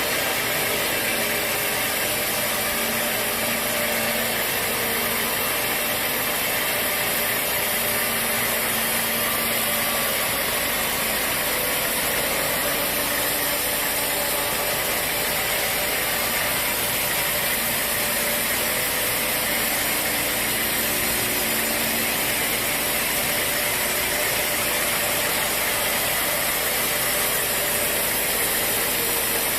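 Sawmill machinery running steadily: a constant, loud mechanical noise with a faint low hum and no break or change in level.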